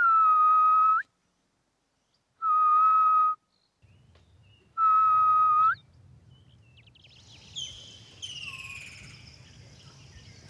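Grey-headed bushshrike calling: three long, steady whistled notes about a second apart, each lasting about a second and lifting slightly at the end. In the second half, other birds chirp and call over a low rumble of background noise.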